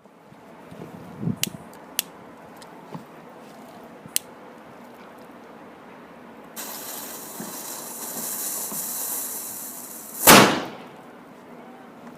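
A Wolf cracker firecracker: a few sharp clicks, then its fuse hissing steadily for about four seconds before the firecracker goes off with one loud bang.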